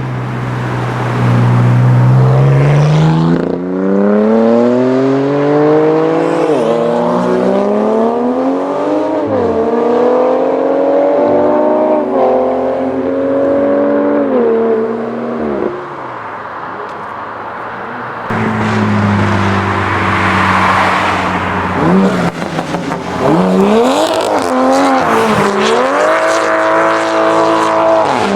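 Toyota GR Supra Mk5's turbocharged B58 inline-six accelerating hard through the gears, its note climbing and dropping at each of about four upshifts. It then eases off briefly before revving again, with rapid up-and-down revving and tyre noise in the second half.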